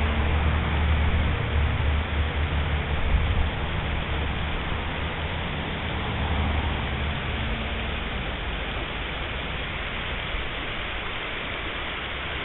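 Steady rush of flowing river water, with a low rumble during the first three seconds or so that then eases off.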